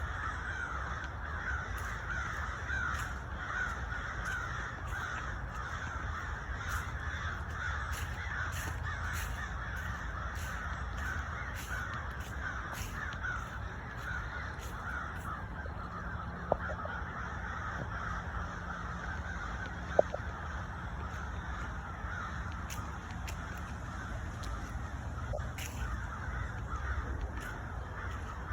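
A large flock of birds calling over one another in a dense, continuous chorus, over a steady low rumble. Two short sharp clicks stand out, about two-thirds of the way through.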